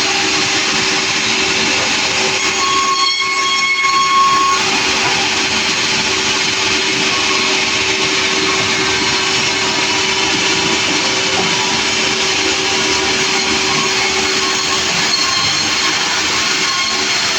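Sawmill running loud and steady, a continuous hiss over a held tone; about three seconds in the sound briefly changes, with a higher tone for about a second.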